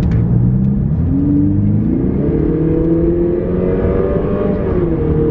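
Lexus IS200t's turbocharged 2.0-litre four-cylinder accelerating hard in sport mode with an aftermarket HPS performance intake fitted, heard from inside the cabin. The engine note climbs steadily from about a second in, then drops back near the end and holds.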